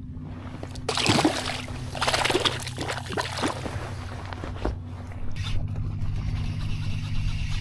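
Shallow bay water splashing and sloshing close by in several short bursts over the first few seconds, as the trout is handled at the surface, over a steady low hum.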